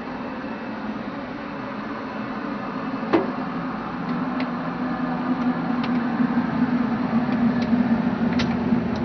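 Steady hum and hiss of the space station's Russian-segment ventilation fans and equipment, a little louder from about four seconds in. There is one sharp knock about three seconds in and a few faint clicks.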